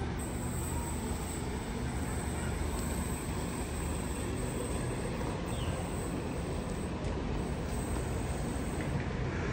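Sydney Trains electric double-deck train approaching slowly into the station, a steady low rumble and hum.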